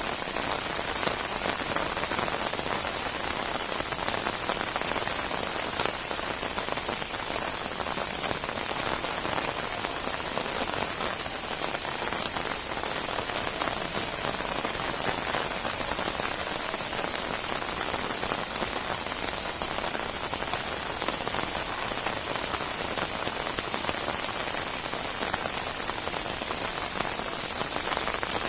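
Steady heavy rain falling on a surface, a dense even hiss with fine drop patter.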